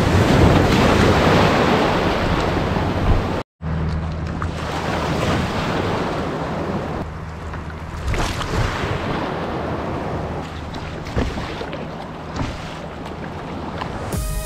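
A breaking wave washing over the side of a plastic sit-on-top kayak in the surf, with wind on the microphone; loudest in the first three seconds, then a brief silent cut. After it, steadier wash of water against the hull with a few small splashes as the kayak is paddled.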